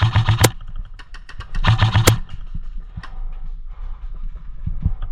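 Airsoft guns firing short full-auto bursts, one right at the start and another about two seconds in, with scattered single shots and BB hits in between.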